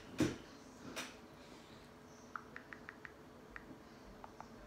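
Faint quick clicks of typing on a phone: a short run of taps about two seconds in and a few more near the end.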